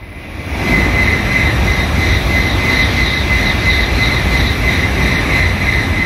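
Tokaido Shinkansen bullet train passing at high speed. It is a loud rushing noise that builds over the first second, holds steady with a wavering high whistling tone through it, and starts to fade near the end.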